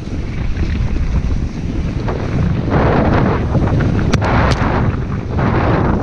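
Wind rushing over a helmet-mounted action camera's microphone at speed, over the rumble of mountain bike tyres rolling down a leaf-covered dirt trail. The rush swells twice, and a few sharp clicks come a little past the middle.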